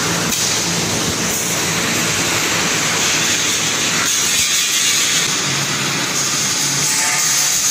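Steady machinery noise from a reinforcing wire mesh welding machine, a constant hiss over a faint low hum, with no distinct strokes.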